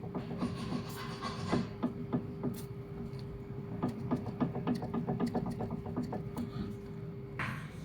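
Car suspension clunking: a quick run of light knocks, several a second, over a steady hum. This is the sign of a worn suspension link arm.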